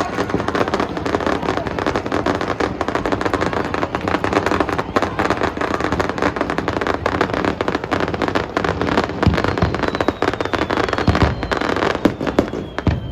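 Aerial fireworks going off in rapid succession: a dense, continuous crackling, with several louder bangs near the end.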